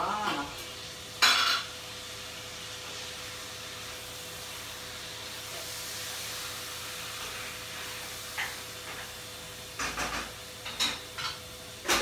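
Chopped tomato dropped into a hot sauté pan with one loud clatter about a second in, then a steady frying sizzle. A few short utensil knocks near the end.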